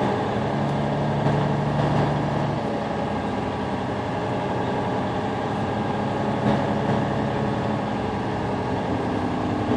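Truck engine and road noise heard from inside the cab as the truck rolls slowly across a parking lot: a steady drone, with a low hum standing out for the first couple of seconds.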